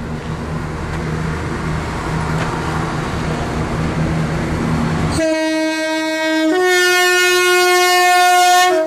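Class 317 electric multiple unit running in along the platform, its rumble growing louder, then sounding a two-tone horn about five seconds in: a lower note, then a higher note held for about two seconds.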